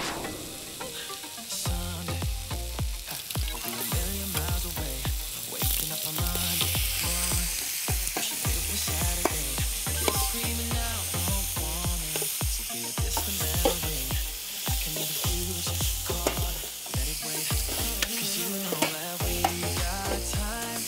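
Pork and green onions sizzling as they stir-fry in a wok, with a metal ladle stirring and scraping and clicking against the pan. A background-music bass line runs underneath.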